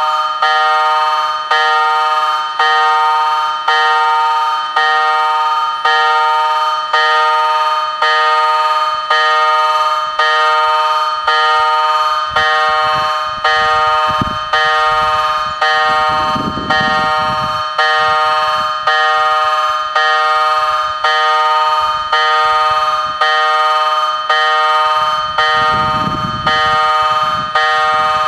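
A level crossing warning bell rings continuously, its metal gong struck over and over in an even rhythm. It warns that a train is approaching. A low rumble swells up twice, about halfway through and near the end.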